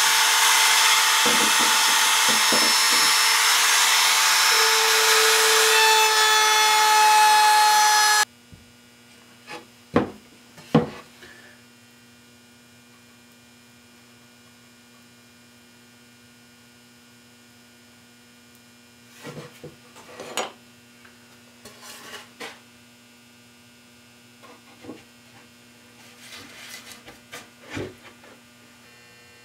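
Compact trim router running with a high whine for about eight seconds, then cut off suddenly. After it, a low steady hum with scattered wooden knocks and clatters as boards are handled and stood in place.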